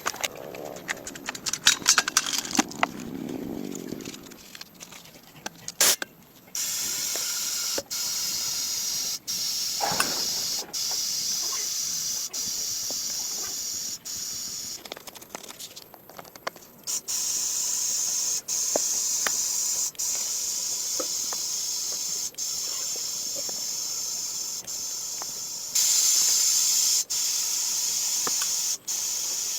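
Scattered clicks and knocks, then a steady high-pressure spray hissing, stopping briefly and starting again several times.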